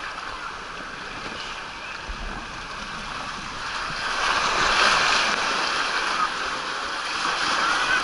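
Water rushing and splashing along an open water-slide channel as a rider slides down through it, a steady wash that grows louder about halfway through.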